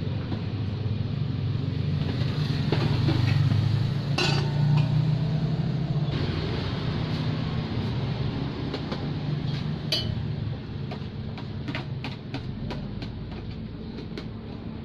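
Metal cooking utensils and pans clinking and knocking over a low rumble that swells for the first few seconds and then fades. The clinks come more often near the end.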